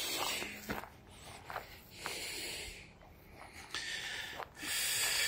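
A person breathing heavily close to the microphone while walking: breaths come and go about every second or two, with soft footsteps in between.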